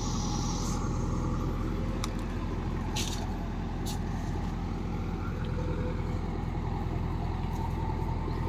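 Diesel engine of farm machinery (tractor or JCB loader) running steadily at constant speed, with a few faint clicks.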